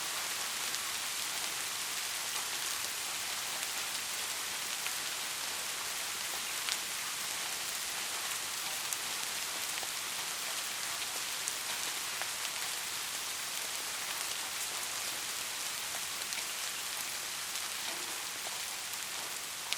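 Soft, steady rain falling on a surface, an even hiss with scattered individual drop ticks.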